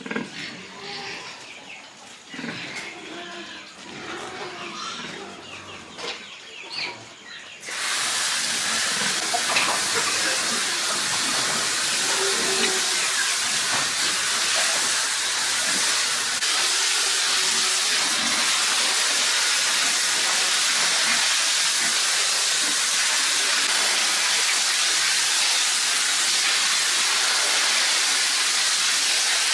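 Water spraying hard from a hose nozzle, a loud steady hiss that starts suddenly about eight seconds in. Before it come scattered small knocks and rustles.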